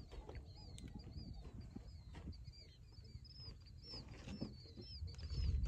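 Small birds chirping in quick, high, repeated notes over a low rumble that grows louder near the end.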